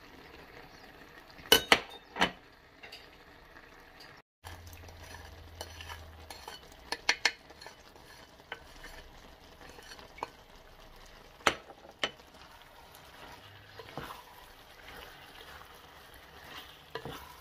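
A wooden spatula scrapes spices off a ceramic plate and stirs sliced doner kebab meat and vegetables in a pot. Sharp knocks and clinks of the spatula against the plate and pot come in scattered groups, loudest about two seconds in, over a faint sizzle of the frying meat.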